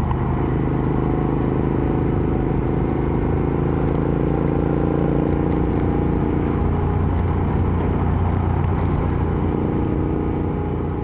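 Royal Enfield Interceptor 650's parallel-twin engine running through an aftermarket AEW TE 102 exhaust at a steady engine speed while riding.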